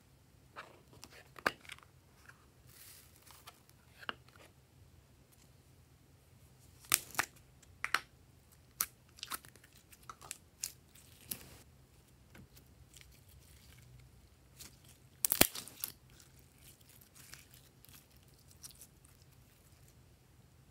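Handling noises from slime play: clicks and rustles of a plastic case, and sticky crackling and squishing as a blob of blue jelly slime is lifted and set into a tray of slime. Scattered sharp clicks, loudest about a third and three quarters of the way through.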